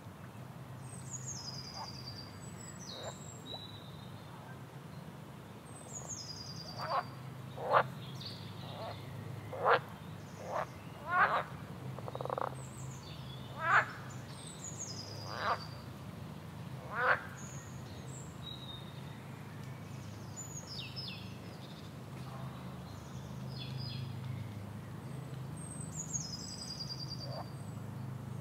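Frog and bird ambience over a steady low hum. About nine loud, short frog calls come between about seven and seventeen seconds in, while a bird repeats a high call that falls in pitch several times.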